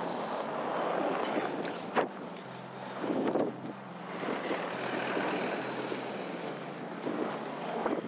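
Snowstorm wind buffeting the GoPro's microphone in rough, surging gusts, over a steady low hum. There is a single sharp knock about two seconds in.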